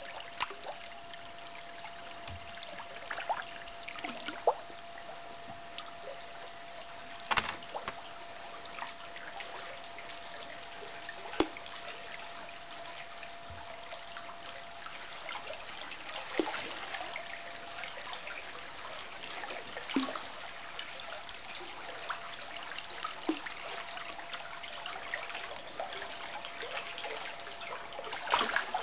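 Stream water trickling and lapping against a drifting kayak's hull, with scattered small splashes and clicks. A faint steady tone sounds throughout.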